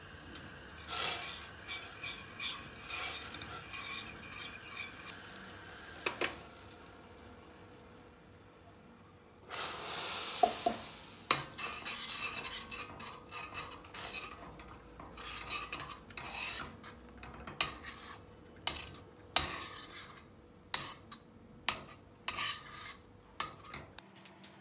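Stirring and scraping in a stainless steel pot of boiling brown sugar syrup. About ten seconds in comes a loud hiss of about a second and a half as tapioca starch goes into the hot syrup. After that, irregular scrapes and sharp knocks as the thickening starch dough is mixed against the pot.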